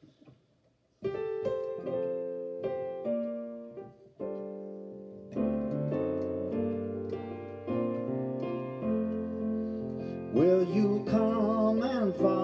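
Digital piano playing a slow hymn introduction in sustained chords, starting about a second in. A man's voice begins singing over the piano near the end.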